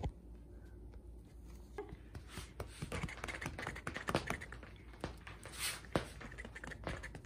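A cat's paws and claws scratching and catching on a coarse woven rug: irregular scratchy rustling with many small ticks, starting about two seconds in after a single sharp click at the very start.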